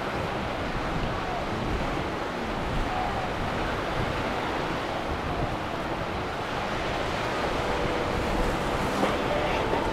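Steady rush of waves and wind noise on the microphone, with the faint hum of boat engines running through it.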